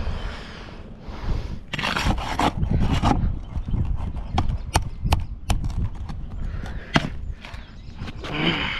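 Repair work sounds: rough scraping strokes broken up by sharp clicks and knocks of tools being handled.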